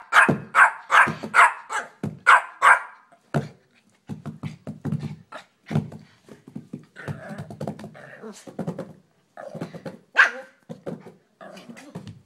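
Small black puppy barking loudly: a quick run of about seven sharp barks in the first three seconds, then quieter, lower noises, and another loud bark about ten seconds in.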